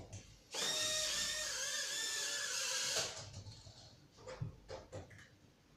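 Small toy quadcopter drone's propeller motors whirring with a high, slightly wavering whine for about two and a half seconds, starting about half a second in and cutting off suddenly. A few light knocks follow.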